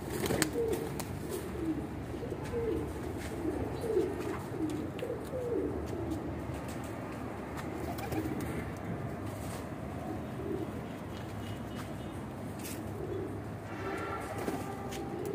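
Domestic pigeons cooing in a loft: many low, bending coos, thick in the first half, thinning out, then picking up again near the end.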